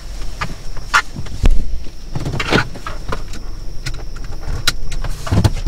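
Irregular knocks and rustles, the loudest about a second and a half in, over a faint steady high whine and a low hum.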